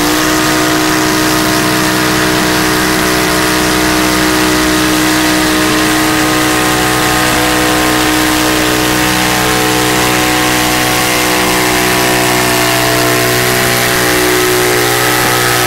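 Super Stock garden pulling tractor's engine running flat out under load while it drags a weight-transfer sled, its pitch held nearly steady at high revs and sagging slightly near the end.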